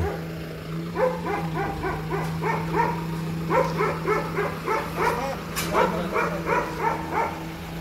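A dog barking over and over in quick runs of short barks, several a second, over a steady low hum.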